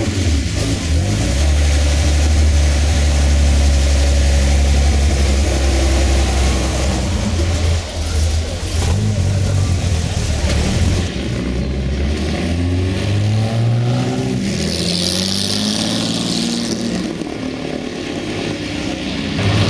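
Classic Jaguar racing car's straight-six engine running hard, loud and low for about the first half. It then drops back, its note falling and rising as it revs and changes gear, with a brief hiss about three quarters of the way through.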